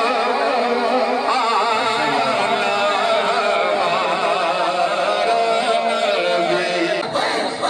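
A man singing a naat, a devotional Urdu poem in praise of the Prophet, into a microphone, his voice held in long wavering, ornamented phrases. The sound changes abruptly about seven seconds in.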